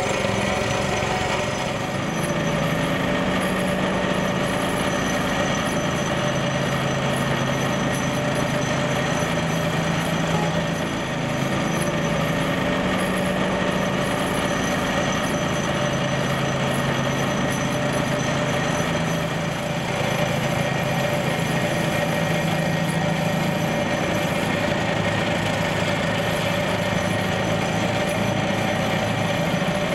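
Hydraulic vibratory pile-driving hammer running steadily, vibrating a mandrel and vinyl sheet pile down into dense soil, a continuous fast rattling buzz with a steady hum. Under it a low machine drone rises and falls a few times.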